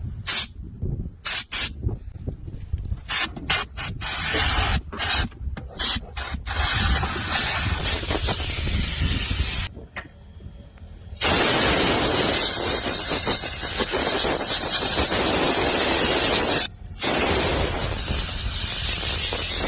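A detailing sprayer hissing, first in short bursts, then in long continuous blasts with a pause about ten seconds in. Wind rumbles on the microphone underneath.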